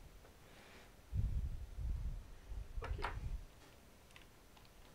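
Low knocks and a sharp click of handling noise, with faint room tone around them.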